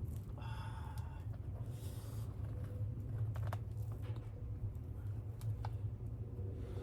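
Bare hands digging and rummaging through garden soil for sweet potatoes, with scattered rustles, scrapes and clicks over a steady low rumble. A short high-pitched tonal sound comes about half a second in.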